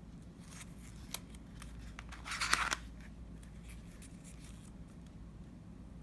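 Packaging rustling and light clicks as a phone is handled out of its box, with a louder, noisy scrape lasting about half a second, a little over two seconds in.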